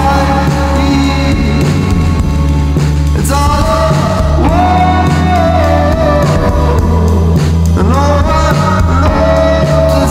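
Psychedelic indie rock music: a steady bass line under long held melody notes that slide up into place.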